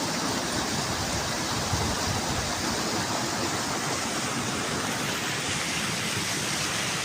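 Steady rushing of a fast mountain stream, an even unbroken roar of water.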